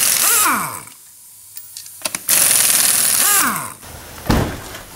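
Pneumatic impact wrench spinning lug nuts off a wheel in two bursts, each about a second long with hissing air, its pitch falling quickly as the motor spins down when the trigger is let go. A single thump near the end.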